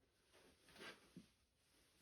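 Near silence, with two faint soft knocks a little under a second in.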